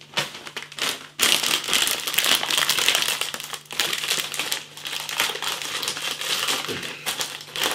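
Crinkly snack bag of jalapeno pork crunch being opened and handled: a couple of short rustles, then continuous crackling and crinkling of the packet from about a second in.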